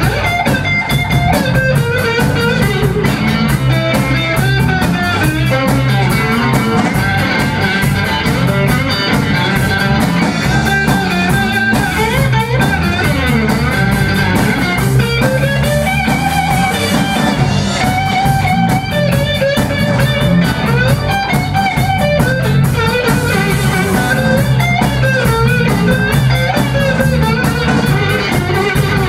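Blues band playing live: electric guitars through Marshall amps over a drum kit, with a guitar line bending notes above the backing.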